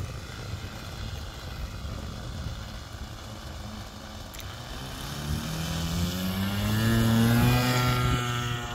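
Radio-controlled model airplane's propeller motor throttling up for a takeoff run, its pitch rising and growing louder from about halfway in, loudest near the end. Before that, a low rumble.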